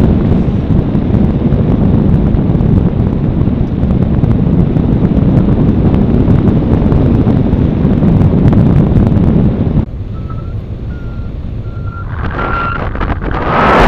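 Wind buffeting the microphone in flight, dropping off sharply about ten seconds in. After that a paragliding variometer gives short beeps at one steady pitch, the sign that the glider is climbing, as the wind noise builds again near the end.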